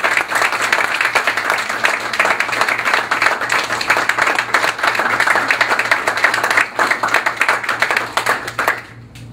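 Audience applause, dense and steady hand-clapping that dies away shortly before the end.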